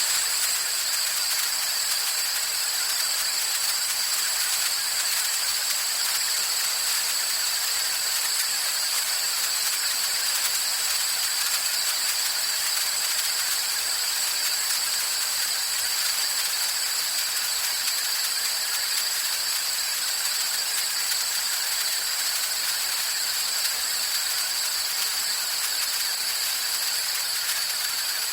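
Long, steady hiss of a pressurised jet of gas or vapour, as from a fog machine or compressed-air release, with a thin high whistle running through it. It holds at an even level throughout and cuts off sharply near the end.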